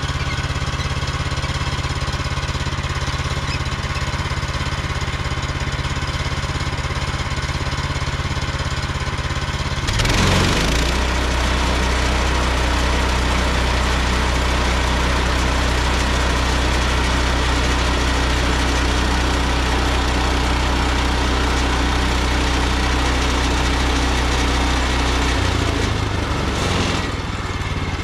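Woodland Mills HM130MAX portable band sawmill's gas engine running steadily. About ten seconds in it gets louder and deeper, with a rushing hiss added as the band blade cuts into the log, and it eases back near the end.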